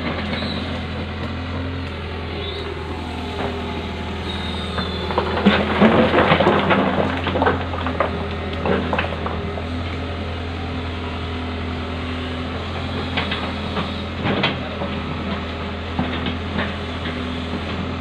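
Diesel engine of a Hitachi crawler excavator running steadily. About six seconds in there is a dense burst of clattering knocks, and a few single knocks follow later.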